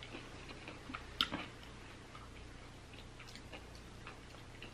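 Close-miked chewing of a mouthful of chicken burrito: faint scattered wet mouth clicks, with one sharper click about a second in.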